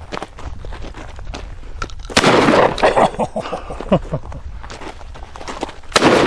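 Citadel Boss 20-gauge side-by-side shotgun fired twice, about four seconds apart; each loud shot rings on briefly after it.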